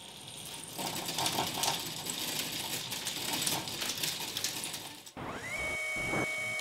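Roller window shade being raised, its mechanism giving a rapid rattling, clicking run for about five seconds. It cuts off suddenly, and music with sustained tones begins.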